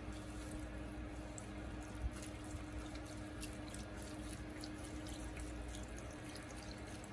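Chicken broth pouring from a carton in a thin stream onto seasoned crab legs, shrimp and corn in a stainless steel pot: a steady trickle with small splashes.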